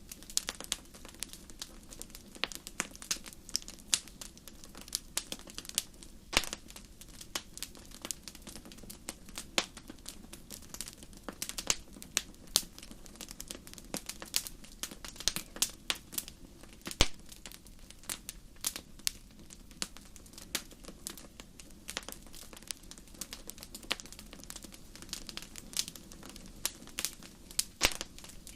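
Wood fire crackling, with irregular sharp pops and snaps over a steady low background.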